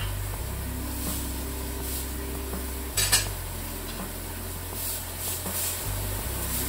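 Metal cooking utensils clinking against a frying pan and dishes, with one sharp clatter about three seconds in, over a steady low hum.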